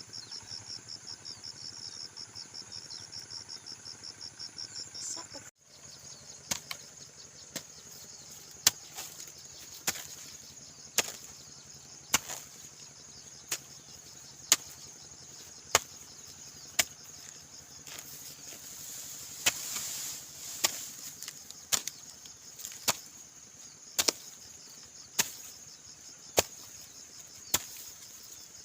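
A hoe chopping into soil, striking about once a second in an even working rhythm. Insects keep up a steady high chirping behind it; for the first five seconds there is only a fast, even insect trill.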